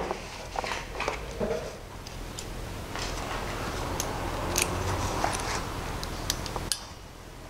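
Small metal clicks and rustling as a thin steel piston ring is worked by hand into the jaws of piston ring pliers, with a soft scraping hiss through the middle that drops away about seven seconds in.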